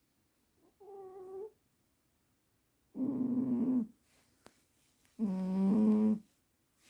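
Sleeping cat snoring: three snores about two seconds apart, each about a second long, the first faint and the other two loud.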